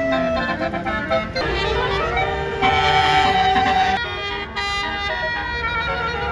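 Basuri telolet multi-tone air horn on a bus playing a tune of held notes that change pitch every second or so, with a rising glide near the start, over a low rumble.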